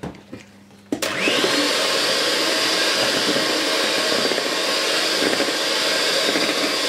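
Electric hand mixer switched on about a second in, its motor spinning up with a quickly rising whine, then running steadily as the beaters whisk sponge-cake batter with flour in a steel bowl.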